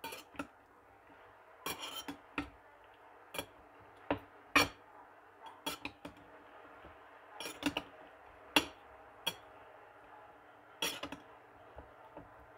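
A metal spatula clinking against a ceramic bowl at irregular intervals as spice-coated fish pieces are turned in their turmeric, chili and salt marinade. A faint steady hum runs underneath.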